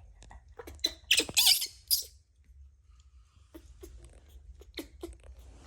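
Baby monkey squeaking and crying in short calls, loudest in a burst about a second in, then fainter short squeaks.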